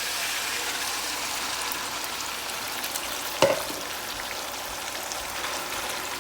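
Chopped tomatoes sizzling in hot oil with browned onions, just added to the pan for a chicken karahi base. One sharp knock about three and a half seconds in is the loudest moment.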